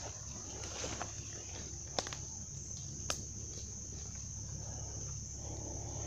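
Steady high-pitched insect chorus in the woods, with footsteps rustling through leaf litter and undergrowth and a couple of sharp clicks about two and three seconds in.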